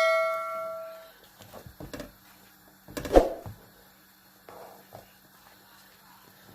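Spoon stirring okra soup in a cooking pot: a ringing tone from a knock on the pot dies away over the first second, then a louder knock about three seconds in and a few soft clicks and scrapes.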